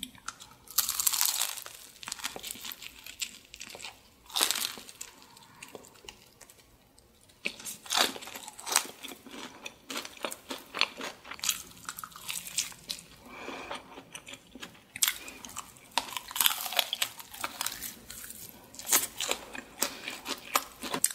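Close-miked crunching and chewing of BHC Bburinkle fried chicken, its crisp seasoned coating crackling in irregular bites, with a quieter spell of chewing about five seconds in.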